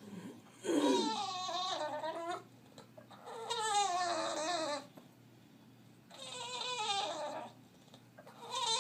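English bulldog howling in long, crying whines, each call falling in pitch; three calls in a row, with a fourth starting near the end.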